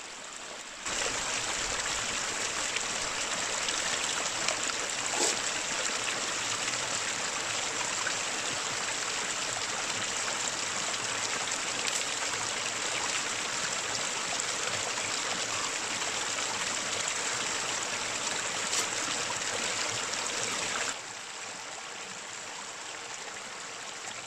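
A creek running, a steady rush of water that jumps up suddenly about a second in and falls back to a quieter flow near the end.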